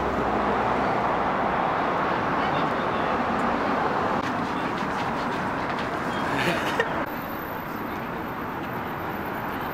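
Busy city street ambience: steady traffic noise with a murmur of voices. A short knock about two-thirds of the way through, after which the sound is a little quieter.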